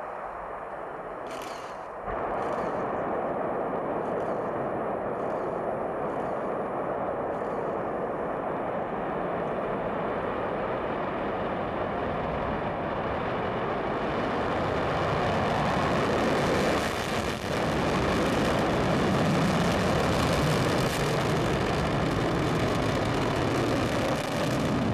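Soyuz rocket engines at liftoff, heard from afar as a steady rushing noise that comes in suddenly about two seconds in and grows louder from about fifteen seconds in.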